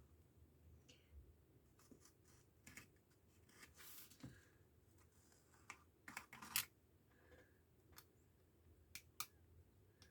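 Near silence with a few faint, scattered clicks and light rustles from hands picking at a book's binding to free its buried stitching threads.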